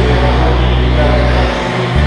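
Background music with sustained bass notes; the bass note changes about one and a half seconds in.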